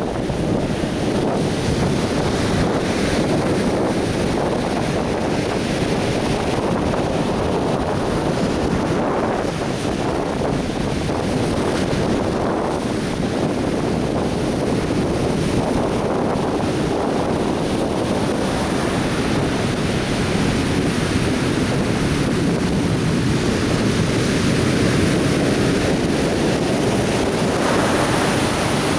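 Atlantic Ocean surf breaking and washing on a beach in a steady, continuous rush, with wind buffeting the microphone.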